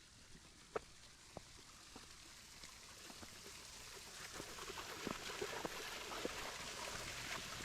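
Running water, a steady rushing that grows louder from about halfway through, with scattered crunching footsteps on the trail.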